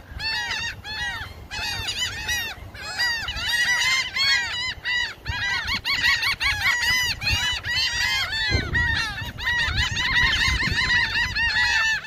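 A flock of laughing gulls calling, many short arched notes overlapping in a dense, continuous chorus.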